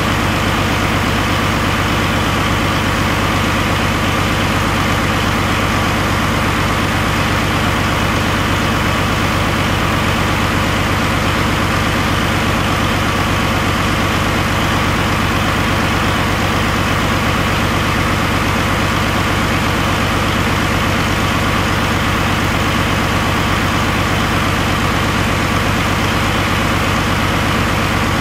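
2013 Paccar MX13 12.9-litre inline-six diesel engine idling steadily on an engine run stand.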